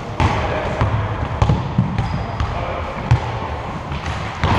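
Basketball being dribbled on a court floor, a run of irregular thuds, with voices in the background.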